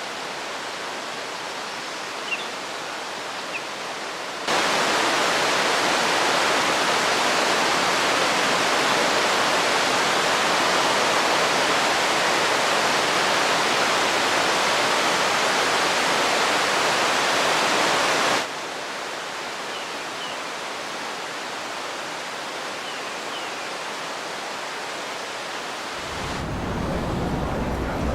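Trevi Fountain's water rushing and splashing into its basin in a steady roar. It turns abruptly louder about four seconds in and drops back about three-quarters of the way through, and a low rumble comes in near the end.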